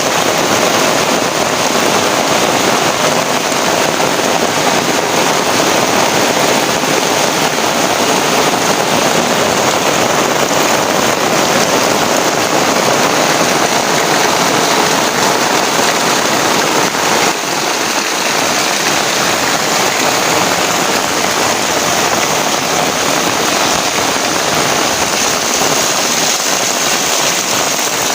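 Heavy rain falling steadily, a dense, unbroken hiss of rain.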